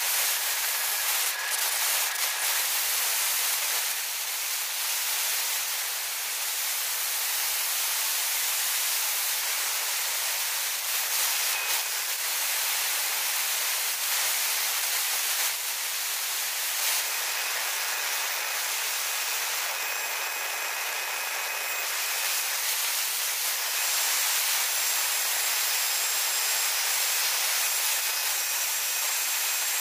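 Ingersoll Rand rotary screw air compressor running with a steady hiss of air and machine noise. It runs normally, though it falls short of pressure when it unloads; the owner suspects the inlet valve, as oil is blowing back into the inlet.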